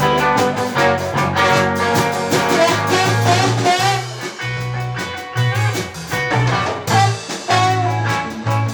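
Live band music: electric guitar over a bass line that moves note by note, in a swing and blues feel.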